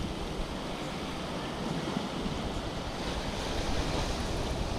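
Small sea waves washing against the rocks of a jetty, with wind rumbling on the microphone.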